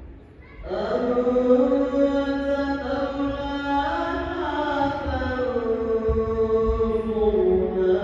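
Background music of wordless held vocals, a slow chant-like hum whose notes glide gently, starting about a second in after a brief lull.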